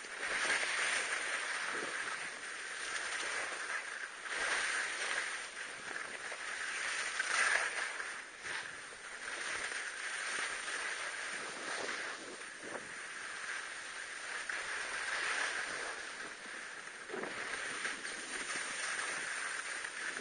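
Skis sliding and carving through snow, a steady hiss that swells and fades every few seconds.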